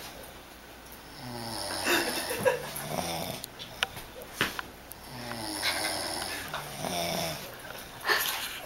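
Two men snoring, buzzy snores swelling and fading in two long waves a few seconds apart, with the two sleepers' snores overlapping.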